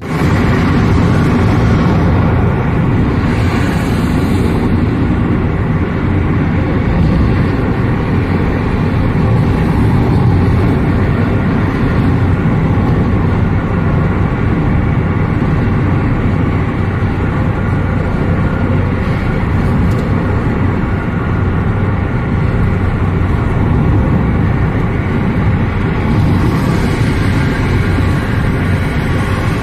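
Steady engine and road noise heard from inside a moving car.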